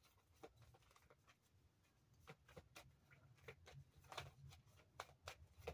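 Near silence with faint, scattered clicks of a deck of cards being shuffled by hand, coming more often in the second half.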